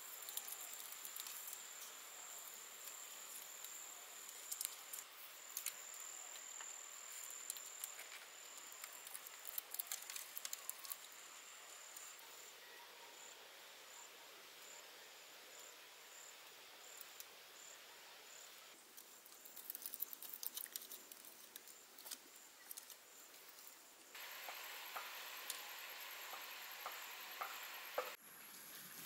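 Faint clicks, knocks and rustling of bamboo poles being handled and lashed together into a roof frame, under an insect calling in one high, thin note that breaks into evenly spaced pulses about halfway through; a different high insect note takes over near the end.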